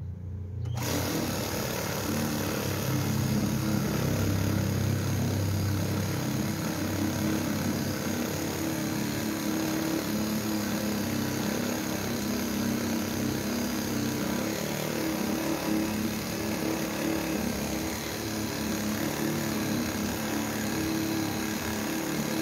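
Cordless battery reciprocating saw cutting through a wooden log. It starts about a second in and runs steadily under load throughout.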